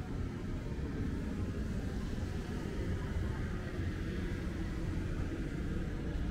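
Steady low rumble of city street ambience, with no single sound standing out.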